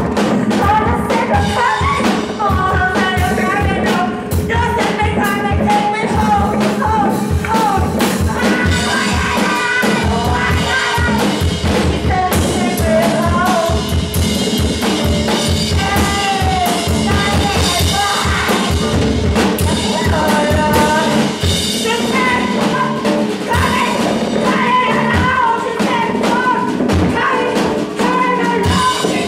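Live band playing loud rock with rapid, dense drumming on a drum kit and electric guitar, with a wavering melodic line above.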